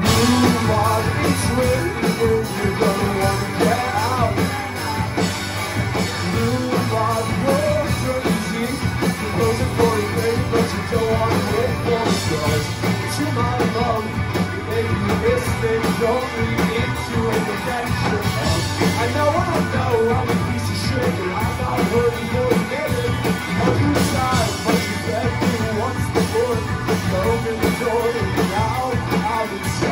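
Four-piece rock band playing a song live: two electric guitars, electric bass and a drum kit.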